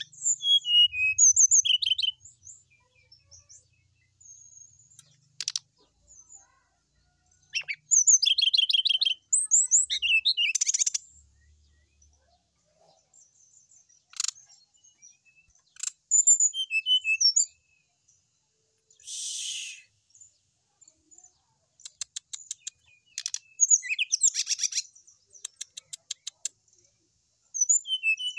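Brown-chested jungle flycatcher singing in bursts of high, quick, varied whistles and trills separated by pauses of a few seconds. Its song is full of mimicked notes. There is a short harsh buzz near the middle and fast runs of ticking notes toward the end.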